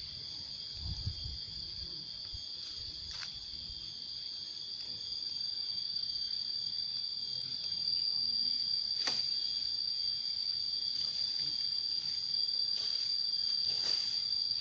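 Steady high-pitched drone of insects, getting louder about halfway through, with a few faint knocks or rustles.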